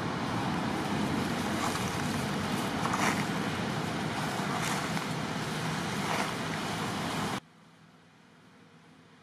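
Steady rushing outdoor background noise with a few faint rustles, which cuts off abruptly about seven seconds in, leaving only a faint hiss.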